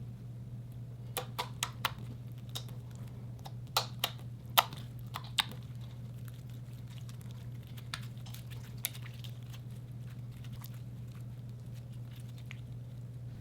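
Slime being handled close to the microphone: a scattering of sharp little pops and clicks, clustered in the first half, over a steady low hum.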